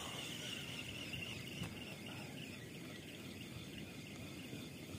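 Faint, steady high insect buzz, strongest in the first couple of seconds and then fading, over low background noise.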